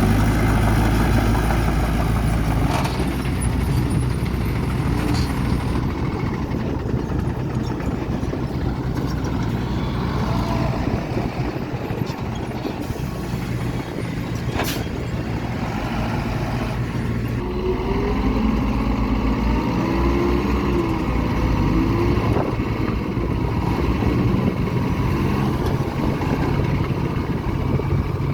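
Heavy diesel earthmoving machinery running steadily, with a few sharp knocks and, in the second half, a wavering whine.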